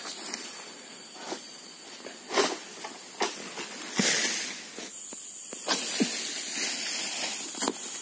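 Palm fronds and undergrowth rustling and swishing, with several dull thuds, as a long-pole harvesting sickle (egrek) works at a tall oil palm. The loudest is a rushing swish ending in a thump about four seconds in.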